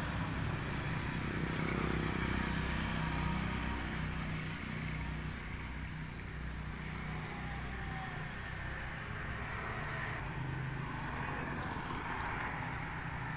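A steady low drone of an engine running.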